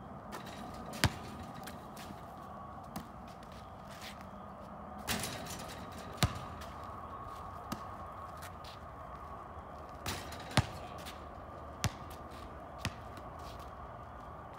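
A basketball bouncing on an asphalt driveway and being caught on passes: sharp slaps at irregular intervals, eight or so, the loudest about a second in, near the middle and about two-thirds through.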